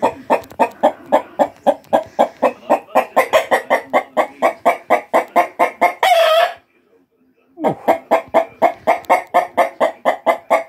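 Young cockerels clucking fast and evenly, about five clucks a second, with one short, held crow about six seconds in. The clucking stops for about a second, then starts again.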